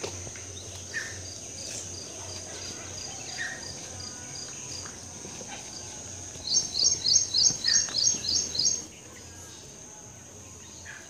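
Outdoor ambience with a steady high-pitched insect drone. From about six and a half seconds in, a run of rapid, evenly spaced high chirps, about three or four a second, lasts a little over two seconds. A few faint short squeaks are scattered through it.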